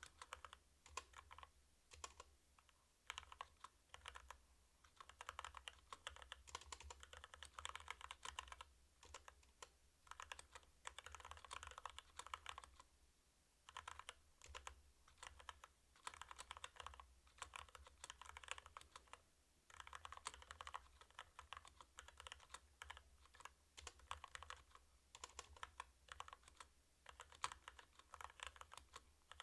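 Quiet typing on a 65% mechanical keyboard with Kailh Box Red linear switches: runs of rapid keystrokes clacking, broken by short pauses every few seconds.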